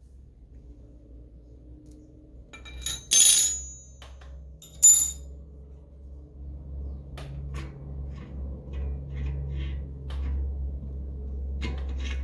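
Metal bicycle hub parts and tools clinking: two sharp, ringing metallic clinks about three and five seconds in, then a string of lighter clicks and taps as the hub is worked apart.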